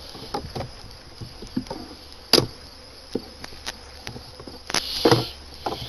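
Wooden hive frames being slid along an open beehive box, knocking and clicking against each other and the box in an irregular series, the loudest knock about two and a half seconds in, over a faint buzz of honey bees.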